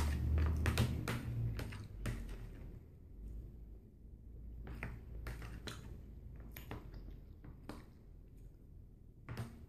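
Eating crab: scattered clicks and light cracks of crab shell being handled and chewed, thickest in the first couple of seconds and sparse afterwards, over a low hum.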